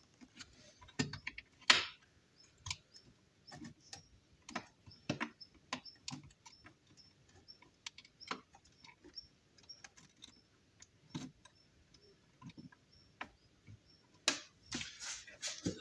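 Irregular plastic clicks and knocks of a hand handling a 3D-printed electronics enclosure and the parts inside it, with a denser flurry of clicks near the end. Faint, evenly spaced high ticks run through the middle.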